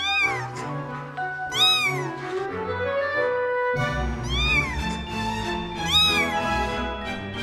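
A young kitten mewing: about four high, thin calls, each rising and then falling in pitch, over background music.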